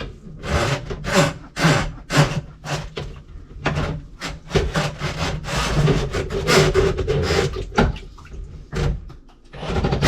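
Rhythmic scraping strokes, about two a second, over a steady low hum.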